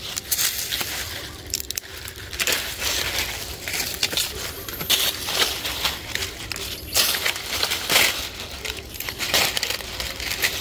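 Dry papaya leaves and a woven plastic sack rustling and crackling as they are handled, in irregular bursts.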